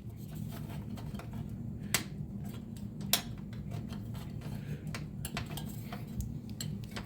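Light clicks and taps of a computer case being handled and closed up, with two sharper knocks about two and three seconds in, over a steady low hum.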